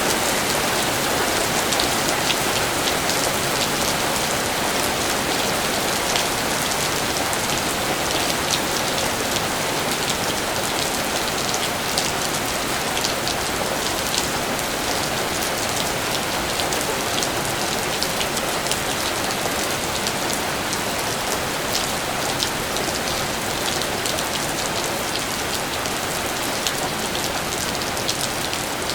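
Steady rain: an even hiss of rainfall with many sharp ticks of single drops hitting a surface.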